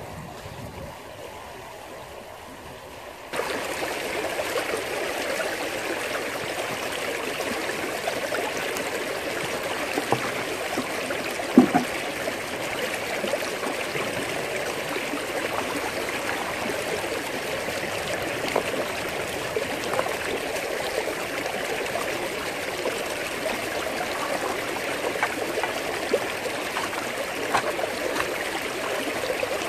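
Stream water rushing steadily down an aluminium gold-panning sluice box. The rush jumps abruptly louder about three seconds in, and there is one short knock about twelve seconds in.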